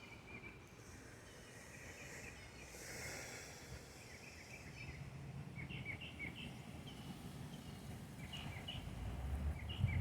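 Small birds chirping faintly in short, high notes scattered throughout, over a steady outdoor background hum; a low rumble grows louder near the end.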